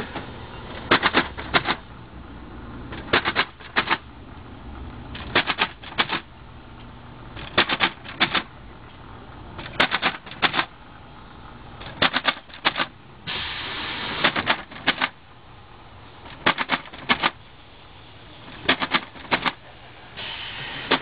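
Rhythmic clacking: quick runs of three or four sharp clacks repeating about every two seconds. A rushing hiss swells up twice, just before the clacks about two-thirds through and again near the end.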